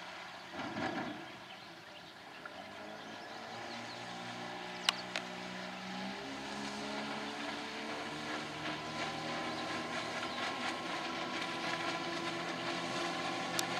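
Tohatsu M9.8 two-stroke twin outboard motor running, with its pitch and level climbing gradually as it speeds up. Two sharp clicks cut through, one near the middle and one near the end.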